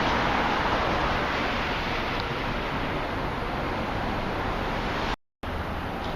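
Steady rushing noise of city traffic and wind on the camera's microphone. The sound cuts out completely for a split second about five seconds in.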